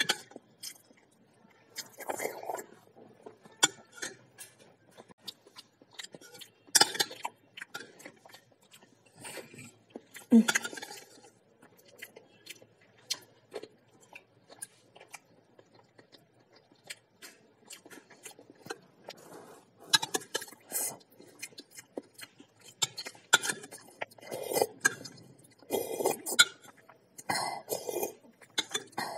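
Metal spoon clinking and scraping against a ceramic bowl, mixed with close-up chewing and slurping sounds of someone eating a boiled egg.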